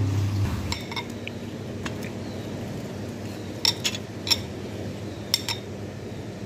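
Steel fork clinking against a plate of watermelon cubes: a few sharp clinks about a second in, then several more in quick pairs between about three and a half and five and a half seconds.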